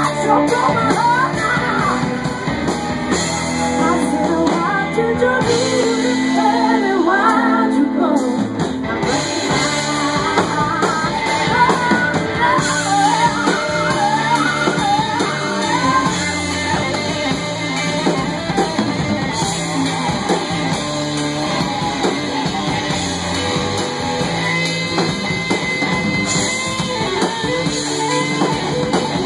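A live rock-soul band playing with singing, electric guitar and drum kit.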